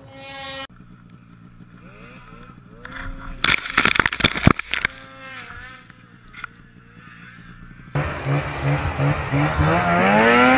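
Snowmobile engines revving up and dropping back in a series of short clips, with a loud stretch of sharp knocks and rattling about three and a half seconds in. Near the end a louder engine climbs in pitch under full throttle over wind noise.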